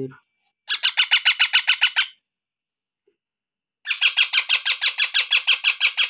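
Indian ringneck parakeet chicks giving rapid, repeated squawking calls, about eight a second, in two runs: a short one about a second in and a longer one from about four seconds in. These are the food-begging calls of hungry chicks being hand-fed.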